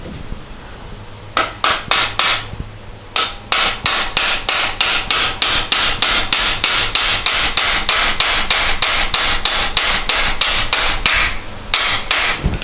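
Hammer driving a steel roll pin through a Porsche 912 pedal cluster's pivot, in sharp metallic taps. There are a few separate blows at first, then a long steady run at about three a second, and a couple of last taps near the end.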